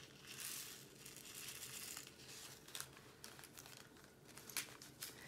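Faint crinkling of a small plastic bag of square resin diamond-painting drills being handled, with scattered light ticks as drills are tipped into a plastic drill tray.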